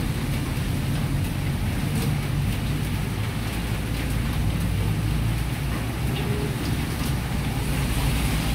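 Pork sizzling in a wok over a gas wok burner's steady rumble, with the metal ladle scraping and clicking against the wok a few times.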